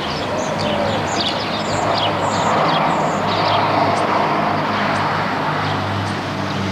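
Small birds chirping repeatedly over the steady rush of a passing motor vehicle, which swells in the middle and fades toward the end.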